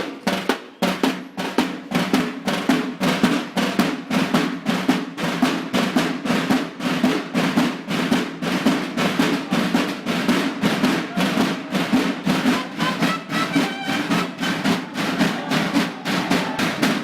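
Military marching drums, snare drums with a bass drum, playing a steady march cadence with snare rolls.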